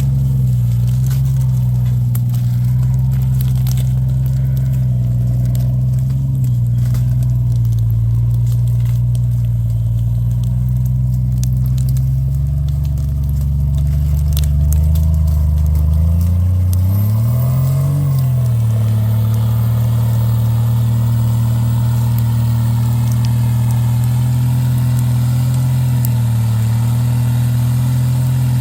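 Off-road vehicle engine running at low, fairly steady revs, with one brief rise and fall in engine speed about two-thirds of the way through.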